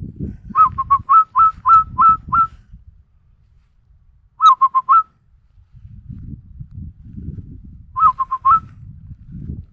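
A person whistling an imitation of the zebra dove's (perkutut) cooing call: three phrases of short, clipped notes, the first of about seven notes, then two shorter ones near the middle and near the end. A low rumble of background noise fills the gaps.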